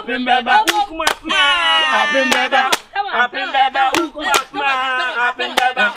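Voices singing and chanting in a praise-song style, with repeated sharp hand claps, and a shout of 'Hallelujah' near the end.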